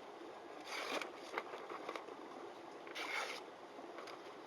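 Sharpened santoku knife blade drawn through paper: two short rustling cuts about two seconds apart.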